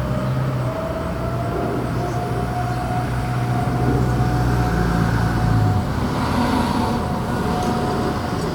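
Distant tornado warning siren sounding one steady tone, rising a little in pitch at first and then held, over a constant rumble of traffic noise. A low hum under it stops about six seconds in.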